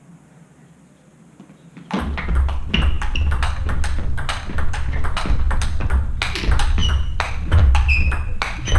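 Table tennis rally: a celluloid ball clicking in quick succession off the rubber paddles and the table, starting about two seconds in. Short high squeaks, most likely shoes on the sports floor, and low thuds of footwork come through with it.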